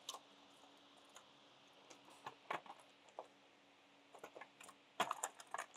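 Scattered light clicks and knocks of metal parts and hand tools as a HEMI V8's valve cover is worked loose, with a louder cluster of clicks about five seconds in.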